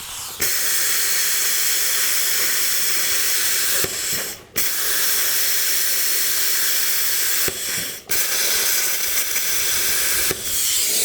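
Compressed air hissing out of an air tool fed by an Ingersoll Rand 60-gallon compressor, in several long bursts of a few seconds each with short breaks between them.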